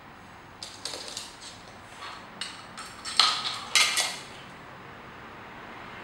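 Small plastic toys clattering and knocking on a wooden floor as a parrot pushes them about: a quick series of sharp clicks and rattles, loudest about three to four seconds in, then stopping.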